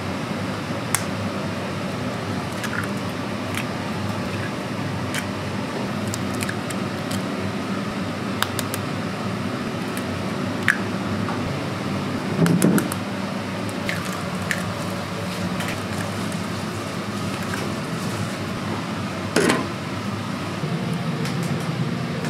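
Restaurant kitchen sounds: a steady machine hum with scattered light clinks and taps of dishes and utensils, and two louder knocks, one just past halfway and one near the end.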